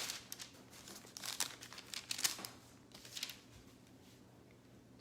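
Faint rustling and crinkling of thin Bible pages being turned: a few short rustles about a second apart, dying away before the end.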